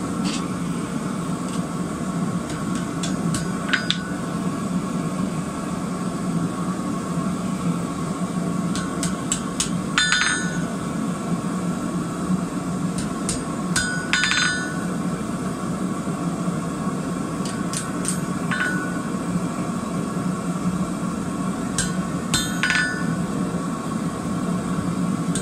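Hammer blows on steel over an anvil in small groups of one to four strikes every few seconds, each with a short metallic ring. They are straightening blows on the twisted middle of a forged wheat-twist hook. A steady low background noise runs underneath.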